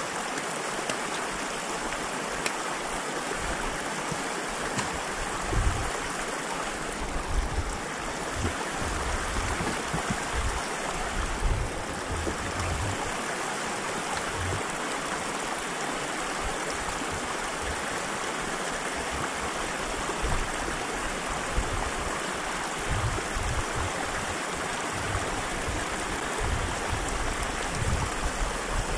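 Small snowmelt creek running steadily over rocks, an even rushing and trickling of water.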